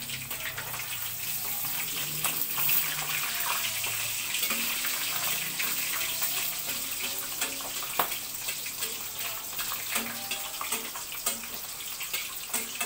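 Catfish pieces deep-frying in hot oil in a pan: a steady sizzling hiss with fine crackling. A few sharp metal clicks come from tongs turning the fish against the pan, one about eight seconds in.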